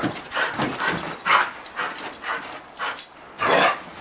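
Border collie panting and whimpering during play: a quick string of short, noisy breaths, with a longer, louder one near the end.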